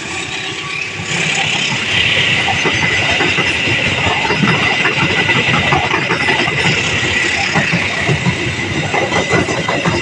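Train passing close by, its wheels clacking unevenly over the rail joints, with a steady high-pitched tone laid over it from about a second in.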